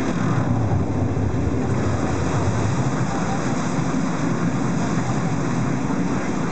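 A boat's motor running with a steady low rumble, under a hiss of water and moving air.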